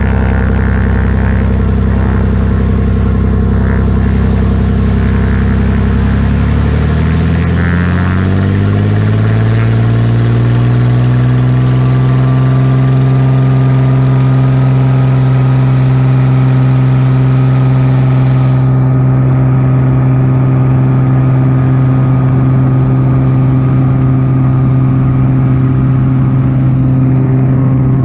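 Piper Turbo Saratoga's turbocharged six-cylinder engine and propeller powering up for takeoff. Around six seconds in, the pitch rises smoothly over about five seconds to full takeoff power, then holds steady as the aircraft rolls down the runway.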